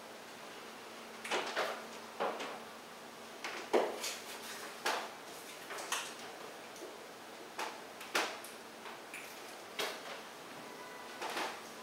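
Irregular sharp knocks and clacks, one or two a second and unevenly spaced, each with a brief ring, over a faint steady hum.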